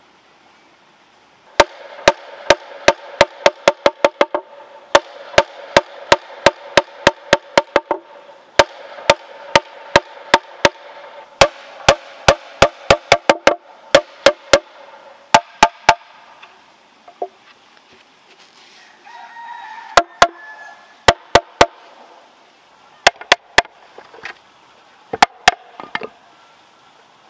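Machete blade striking a hollow bamboo tube: sharp knocks with a hollow ring, about three a second, starting a second or two in. After the middle they come sparser, in small groups.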